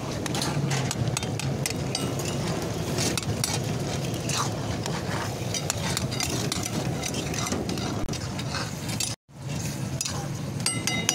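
Metal tongs and a spatula clinking and scraping against a steel wok as chicken in sauce is stirred and tossed, with sizzling under it. The sound breaks off briefly about nine seconds in.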